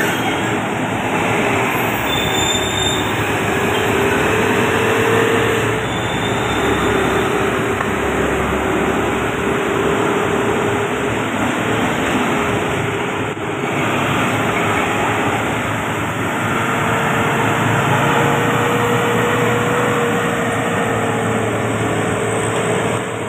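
Heavy tanker truck's diesel engine running under load on an uphill grade as it passes close, with a steady whine over the engine noise.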